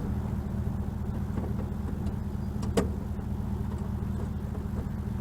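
Car engine idling steadily, with a single sharp click about three seconds in.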